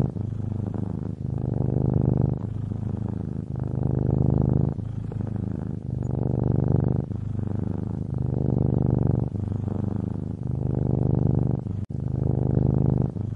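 Domestic cat purring close up: a low, steady purr that swells and eases in turns about every second as the cat breathes in and out, with a brief break near the end.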